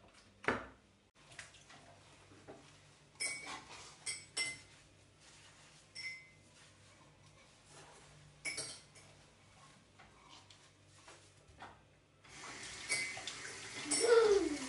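Ceramic dishes clinking and knocking at a kitchen sink as a plate is set down and a bowl is wiped with a sponge. About twelve seconds in the tap comes on and water runs and splashes over the bowl being rinsed, its pitch rising and falling near the end.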